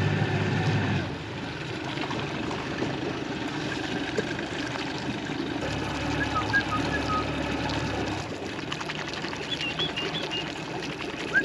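Boat engine running steadily at idle, with a continuous trickle and splash of water.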